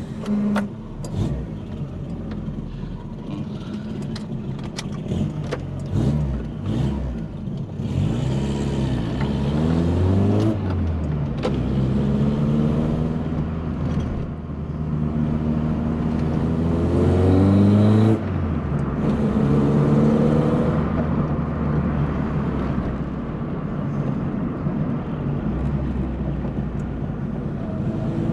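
VW Polo Coupe's freshly reassembled engine pulling away on a test drive, accelerating through the gears: the engine note climbs in pitch three times, each climb ending in a sudden drop at a gear change, then settles to a steadier cruise.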